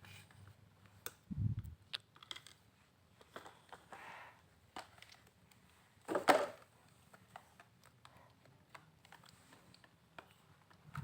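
A spoon stirring wet clay in a container: scattered light clicks and taps of the spoon against the container, with a dull thump about a second and a half in and a louder knock about six seconds in.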